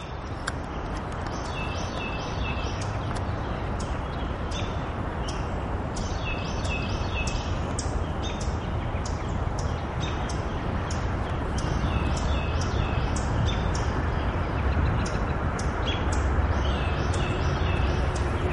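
Small songbirds chirping in short repeated phrases of high notes, over a steady low background rumble.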